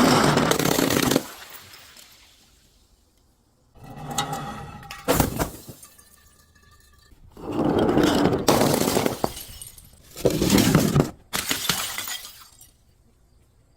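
Glass bottles breaking and crunching, about five loud shattering bursts, with brief glassy ringing from the pieces in a gap between them.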